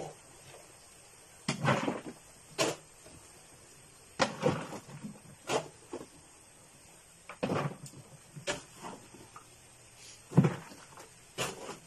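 A series of irregular knocks and thuds, about eight short ones spaced one to two seconds apart.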